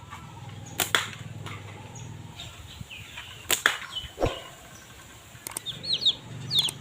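Several sharp snaps and knocks, two close pairs about a second in and about three and a half seconds in, over a low steady hum. Near the end come a few quick high chirps from small birds.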